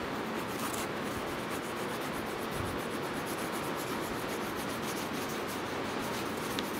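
Wax crayon rubbing back and forth on notebook paper, colouring in an area with steady strokes.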